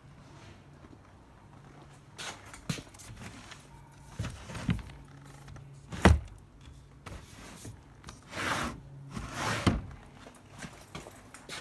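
Handling and movement inside a cluttered storage unit: a series of knocks and thuds, the loudest about six seconds in, then two longer scraping rustles near the end, over a faint low hum.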